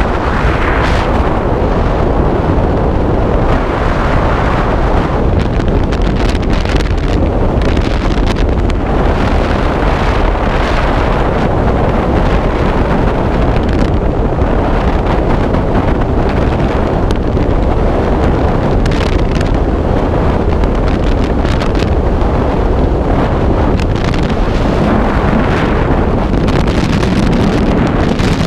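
Freefall wind rushing over a camera microphone during a skydive: a loud, steady roar of air that swells and eases every few seconds.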